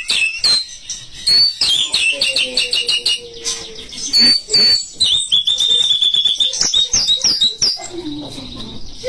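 White-rumped shama (murai batu) singing: quick runs of clear whistled notes and short glides, with a longer rapid trill about five seconds in.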